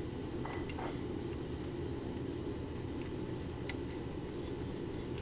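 A few faint, light clicks of small screws and metal parts being handled inside a Delco alternator's end housing as the regulator screws are fitted by hand, over a steady low hum.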